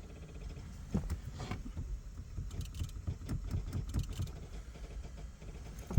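Relays in a 2008 Corvette C6 clicking rapidly, about five clicks a second. The fuel pump relay and powertrain ignition relay are cycling on and off, on a car that won't crank or start.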